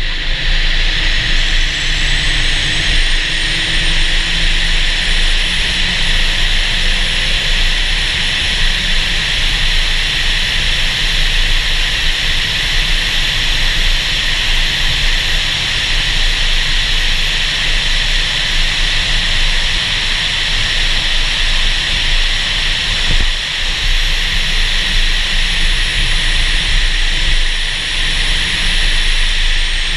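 Car driving at speed, heard from a camera on its bonnet: a steady rush of wind over the microphone with the engine running underneath. A thin high whine slowly rises over about twenty seconds, then falls near the end.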